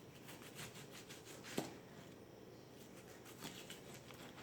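Faint rustling and light clicks of chopped vegetables being handled and portioned out, with one sharper click about a second and a half in.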